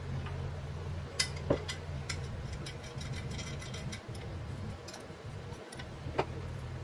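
Scattered light clicks and taps of small parts being handled and fitted into a painted telephone bell-set base, heard over a steady low hum.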